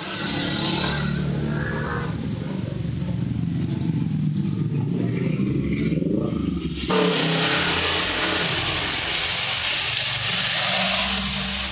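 Rain hissing steadily, with a motor vehicle engine running underneath. About seven seconds in, the hiss suddenly grows louder and brighter.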